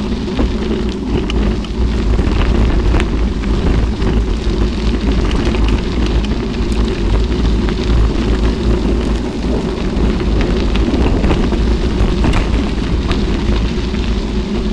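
Mountain bike riding on a gravel road: a steady rumble of wind buffeting the microphone and tyres rolling over gravel, with scattered small clicks and rattles from the bike.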